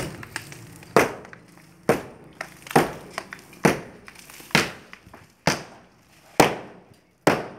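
Sledgehammer blows on an old concrete block wall: about eight heavy strikes, roughly one a second, each a sharp crack with a short rattle of breaking block, knocking a groove down through the blocks.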